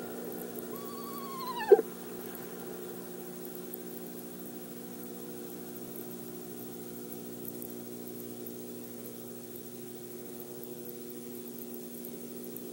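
Eastern screech owl giving one short descending call, about a second long, that falls steeply at the end and is cut off by a sharp, loud click. A steady low hum runs underneath.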